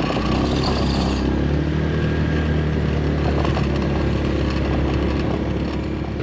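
A motor vehicle's engine running steadily: an even low drone with a few steady tones above it, and a brief high hiss near the start.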